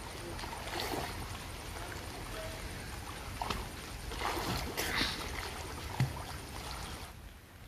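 Water splashing and sloshing as a swimmer strokes through pond water. There is a run of irregular splashes from the arm strokes, the sharpest about six seconds in.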